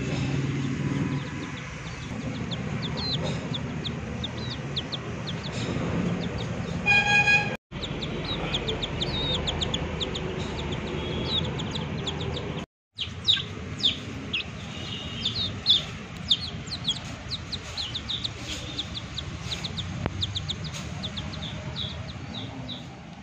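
Chicks peeping: many short, high cheeps that fall in pitch, coming thick and fast after about 13 s. A horn sounds once, loudly, around 7 s, over a steady low background rumble.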